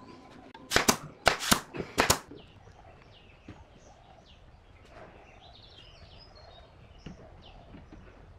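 A quick run of about six sharp knocks during woodworking assembly of a bent-wood chair frame, then small birds chirping faintly.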